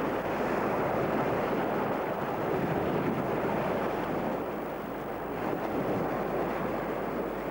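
Small waves breaking and washing up on a shore, a steady rushing noise, with wind on the microphone.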